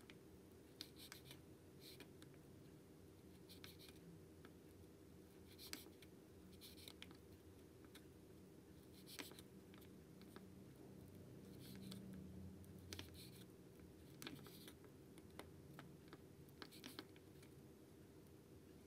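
Small knife mincing raw meat on a miniature wooden cutting board: light, irregular chopping taps and scrapes, roughly one a second, over a faint steady hum.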